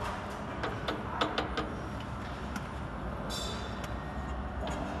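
Hands handling film and metal rollers on a multi-lane liquid sachet packing machine: a quick cluster of light clicks and knocks about a second in and a brief high squeak a little after three seconds, over a steady low machine hum.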